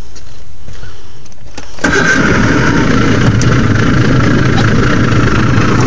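A boat's motor comes on suddenly about two seconds in and runs steadily, with a low drone and a steady high whine, as the boat moves off to pay out a gill net.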